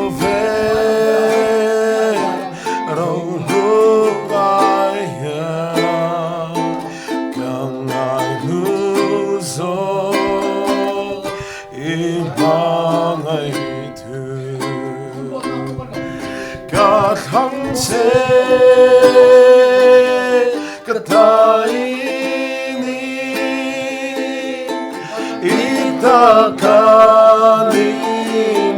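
Live music: a singing voice with plucked-string accompaniment, played through a sound system during a sound check.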